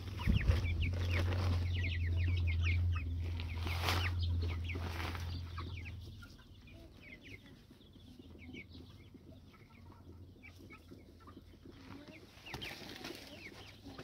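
A flock of young chickens clucking and cheeping in many short, falling chirps while they feed. A low steady hum sits under them for the first six seconds, then stops.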